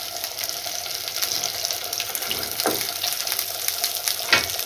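Halved boiled potatoes frying in mustard oil in a non-stick pan: a steady sizzling hiss with fine crackles. Two knocks cut through it, the louder one near the end as the spatula is laid on the steel tray.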